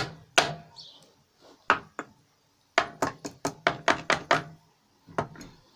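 An ingot mould being struck again and again to knock a stuck zinc-aluminium ingot loose. There are a few spaced sharp knocks, then, a little under three seconds in, a quick run of about ten blows, roughly six a second, and one last knock near the end.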